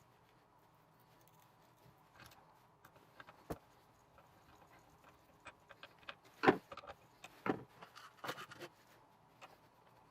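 Scattered light clicks and knocks of hard objects being handled, with a few louder knocks a little past the middle.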